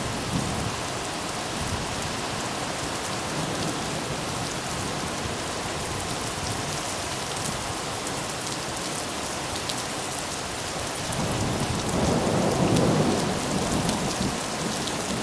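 Steady rain falling during a thunderstorm, with a low rumble of thunder swelling about eleven seconds in, loudest a second or two later, then fading near the end.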